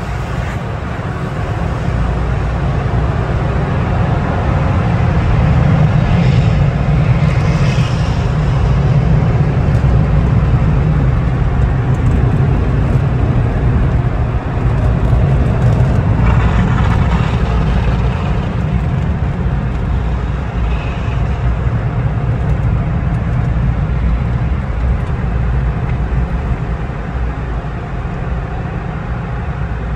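Tunnel car wash equipment heard from inside the car: water spraying onto the car, then the dryer blowers running, one loud, steady low rumble with a hiss over it.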